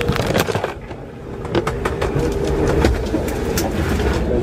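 Low rumble with many scattered clicks and knocks: handling noise from a camera being carried and moved about while walking.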